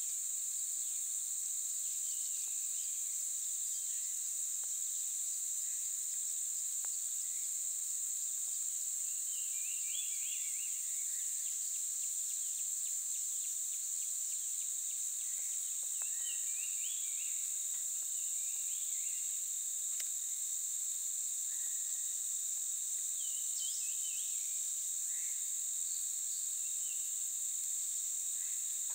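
Steady high-pitched chorus of insects, continuous and unchanging.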